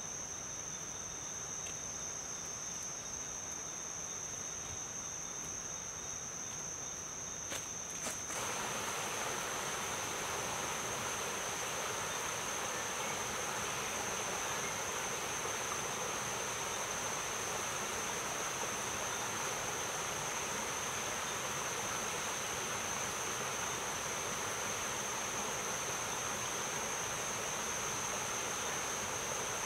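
Steady high-pitched insect chorus, one continuous trill that holds throughout. About eight seconds in, a steady broad hiss sets in suddenly and continues under it.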